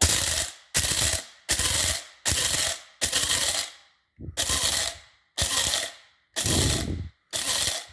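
Krups electric coffee grinder run in short pulses, about nine bursts of half a second or so with brief pauses between, grinding coffee beans down to a coarse grind with little chunks of bean left for a French press.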